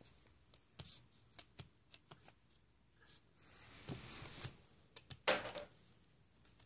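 Faint scattered clicks and rustles, with a brief louder rustle about five seconds in: handling noise.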